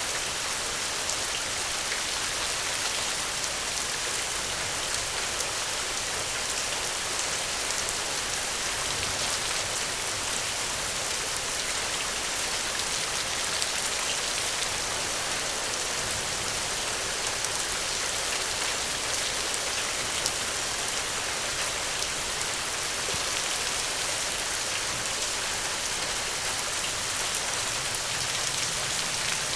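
Steady gentle rain falling, an even hiss with many small drops ticking on a surface.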